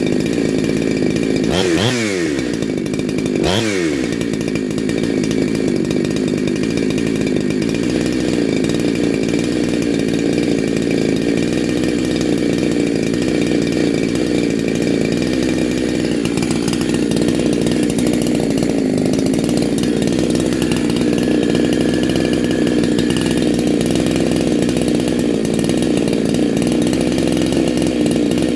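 Big-bore Neo-Tec NH872 two-stroke chainsaw, a Husqvarna 372XP clone, running at high revs. Its revs dip sharply and climb back twice, about two and three and a half seconds in, then hold steady.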